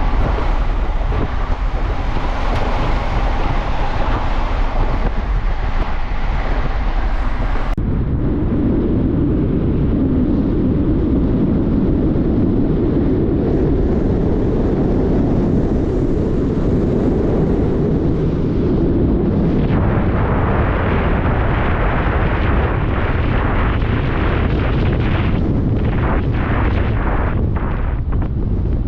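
Wind buffeting the microphone while travelling at speed, over a low rumble. About eight seconds in, the sound changes abruptly from a bright hiss to a heavier, lower rush.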